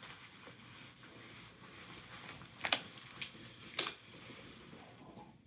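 Phone handled close to its microphone: a few light clicks and taps, three of them clear, over faint room tone.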